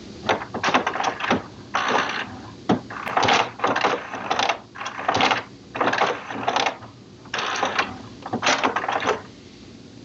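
HP Smart Tank 720/7001 inkjet printer's mechanism running a level 3 printhead cleaning cycle: a run of short mechanical bursts, each under a second with brief gaps between, stopping about nine seconds in.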